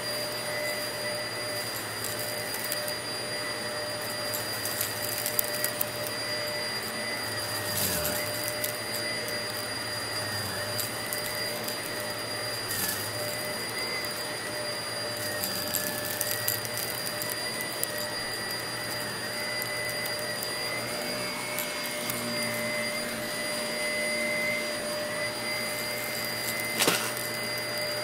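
Shark Navigator vacuum running steadily with a high motor whine over a rushing airflow, broken by a few sharp clicks, the loudest near the end.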